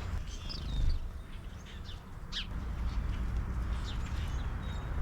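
Small birds chirping: several short, high, falling chirps spread through, with a brief thin whistle near the end, over a steady low rumble.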